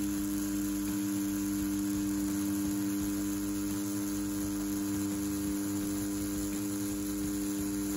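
CNC T4 rotary tattoo pen running at 7 volts with a bugpin 5-round liner needle while pulling lines, a steady, even hum.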